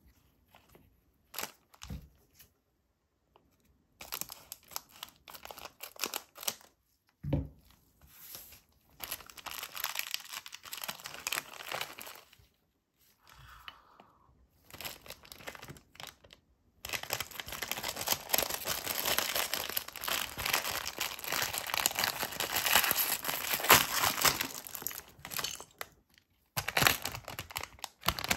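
Plastic LEGO minifigure blind bag and its clear inner bag being torn and crinkled by gloved hands, with scattered small clicks of plastic pieces earlier on. The crinkling gets dense and continuous past the middle.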